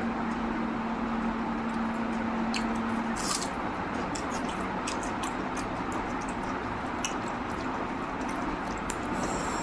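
Close-up eating sounds of a mouthful of rice and mutton curry being chewed: wet squishing and smacking with scattered short clicks over a steady background hiss. A low steady hum stops about three seconds in.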